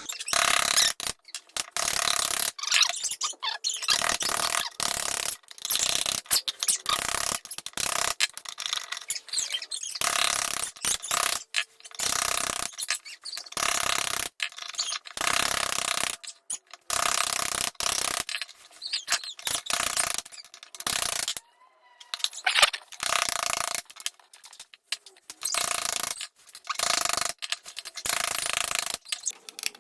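Rhythmic strokes of a hand tool worked on a crepe machine's casing, about one a second, each a short scraping or ratcheting burst, with a brief pause about two-thirds of the way through.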